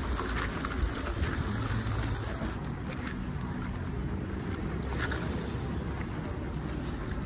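Steady low rumble of street traffic, with faint scuffing steps on wet, slushy pavement.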